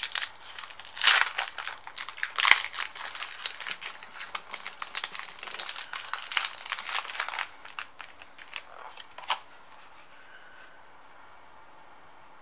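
Foil wrapper of a Pokémon trading-card booster pack crinkling and tearing as it is opened, with two louder rips early on, then a few lighter rustles that stop about nine seconds in.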